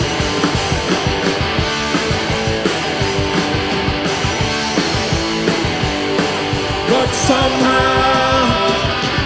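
Live rock band playing: distorted electric guitars, bass and a drum kit driving a steady beat. Held higher notes come in about seven seconds in.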